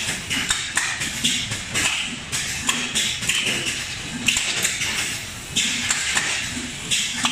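Gear pump filling machine running on a bottle line: irregular short hisses, about one or two a second, with light clicks and taps of glass bottles.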